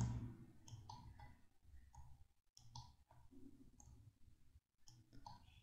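Faint, scattered clicks of a computer mouse and keyboard.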